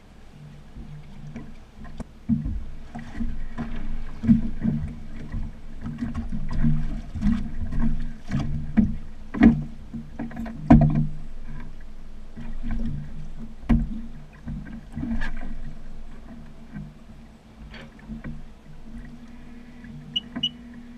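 Sea-Doo GTR 215 jet ski idling with a steady low hum, while water slaps and knocks irregularly against the hull, loudest in the middle.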